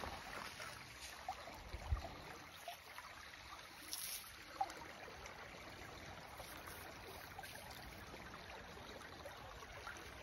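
Shallow creek water trickling faintly and steadily, with a couple of soft knocks in the first two seconds.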